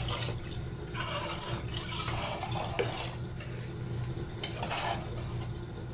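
A metal ladle stirring potatoes through thin, watery masala in a cooking pot: soft sloshing swishes coming in waves. A steady low hum runs underneath.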